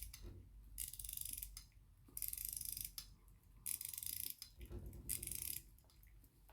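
J W Benson key-wound pocket watch being wound with its key: the winding ratchet clicks in short bursts, one per turn of the key, about every second and a half. The bursts show that the winding arbor, the watch's fault, now takes the key after the repair.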